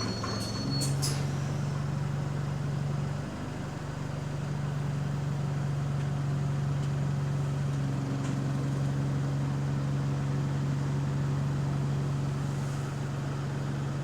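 City bus engine and drivetrain running steadily, heard from inside the passenger saloon as an even low drone, with a few short clicks about a second in.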